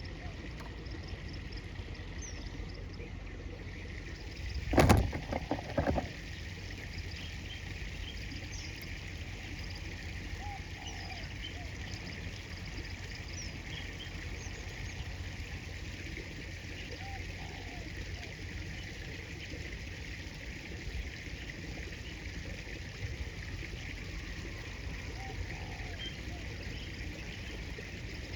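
Steady rushing of river water and wind on the microphone, with a loud burst of noise lasting about a second, about five seconds in, and faint short chirps now and then.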